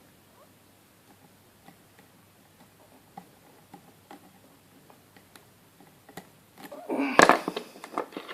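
Faint, irregular light clicks of a lock pick working the spring-loaded pin stacks of a Yale Y120/50 high-security padlock held in a false set. Near the end, a louder burst of metallic clattering and rustling handling noise.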